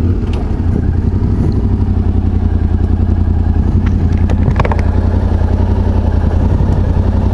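Yamaha Ténéré motorcycle engine ticking over at low speed with a steady, even pulse, not revving, as the bike rolls slowly to a stop in traffic. A glove brushes against the camera a few times about halfway through.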